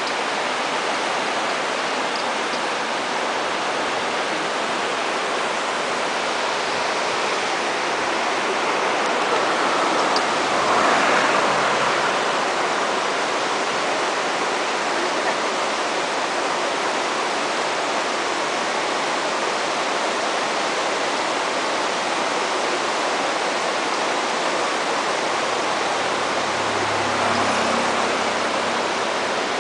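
A fast-flowing river rushing steadily, swelling a little louder about ten seconds in.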